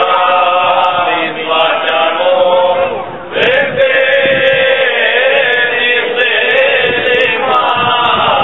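Group of men singing a Cretan rizitiko folk song together, in long drawn-out phrases; a new phrase begins about three seconds in.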